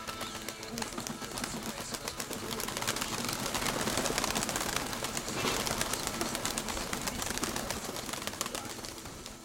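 A flock of domestic pigeons at feeding time: a dense, busy patter of many small clicks and flutters that swells in the middle, with some cooing.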